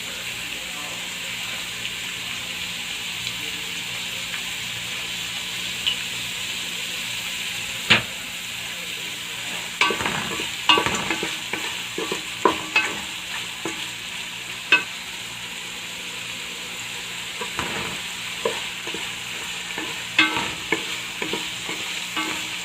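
Sliced onions frying with salt in hot oil, a steady sizzle, while they sauté until wilted. From about eight seconds in, a spoon scrapes and knocks against the pan now and then as they are stirred.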